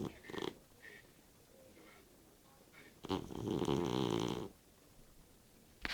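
Snoring in sleep: a short snore right at the start, then one long snore about three seconds in that lasts well over a second.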